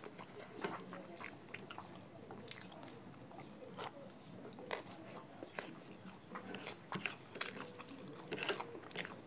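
Close mouth sounds of a person eating rice and chicken curry by hand: chewing, with many short irregular clicks and smacks.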